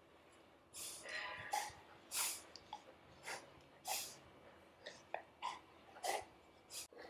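Golden retrievers, an adult and a puppy, snuffling and huffing at close range as the puppy paws and mouths the adult's face in play. About nine short, sharp breaths through the nose come at irregular intervals, with a brief pitched whine or grunt about a second in.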